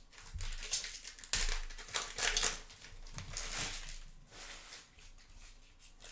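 Trading cards being handled and sorted on a tabletop: papery rustling and sliding of cards in several short bursts.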